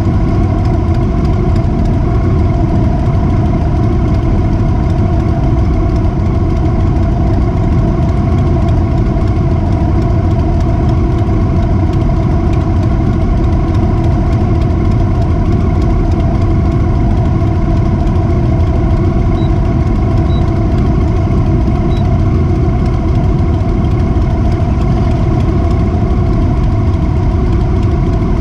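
Motorcycle engine running steadily at an even pitch, over a heavy low rumble.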